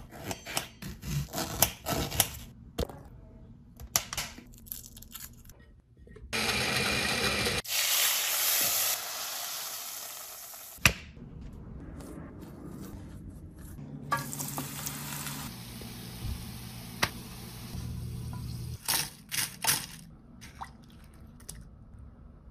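Food preparation with a kitchen knife: a quick run of sharp clicks and taps as it cuts through tomatoes onto a glass tabletop. A few seconds later comes a loud, even hiss that cuts off suddenly with a click. After that there is a quieter low hum with scattered clicks.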